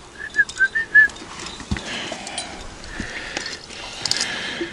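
A quick run of five short whistled notes, all at about the same high pitch, in the first second.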